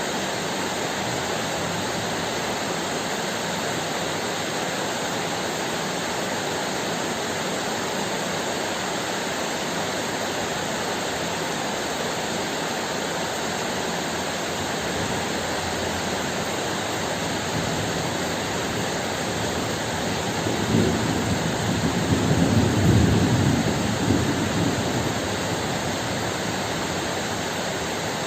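Steady heavy rain, with a deep roll of thunder that swells about three-quarters of the way through and dies away over about four seconds.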